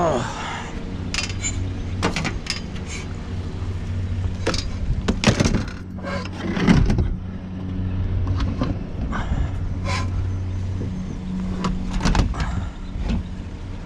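Vehicle engine idling with a steady low hum, with scattered knocks, clanks and rattles of things being handled over it; the hum fades out near the end.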